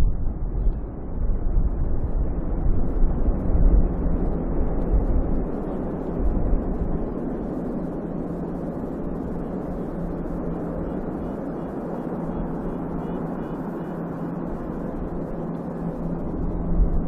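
Freight train rolling past on the rails, a steady run of cars clattering by, with a steady low hum joining in about six seconds in. Gusty low rumble from wind on the microphone in the first few seconds.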